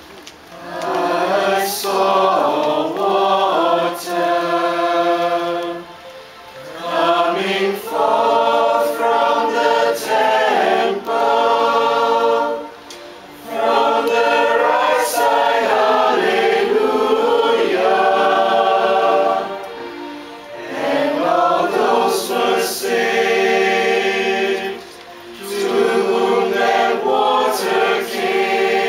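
Small choir of young men singing a hymn in sustained phrases, with short breaks for breath between the phrases.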